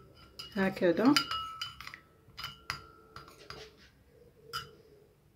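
Metal spoon stirring in a ceramic dish, giving several sharp clinks, each with a brief ring, as it knocks and scrapes against the bowl.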